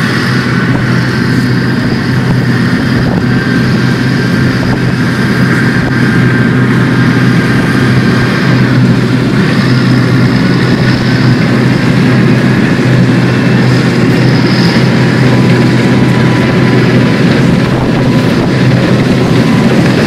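Landini Legend 160 Top tractor's diesel engine running steadily as it pulls a grain trailer.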